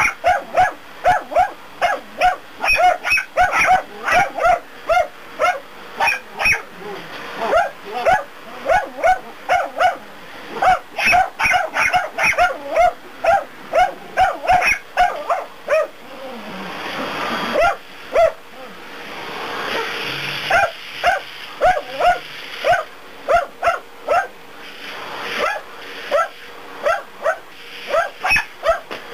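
Dachshund barking rapidly and repeatedly at a running vacuum cleaner, about two to three barks a second. The barks thin out around the middle, where the vacuum's rushing noise swells up and fades.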